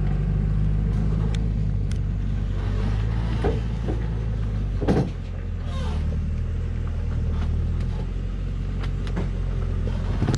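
Heavy log truck's diesel engine running in a steady low drone as the loaded truck crawls through deep mud ruts. Several sharp knocks and clunks come from the truck, the loudest about five seconds in, where the engine note drops.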